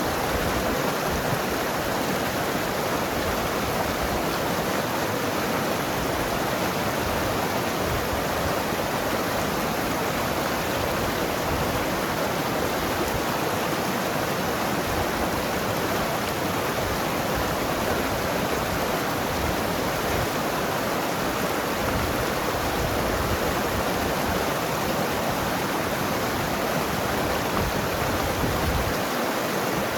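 Mountain river flowing and tumbling over rocks: a steady, dense rush of water with gurgling.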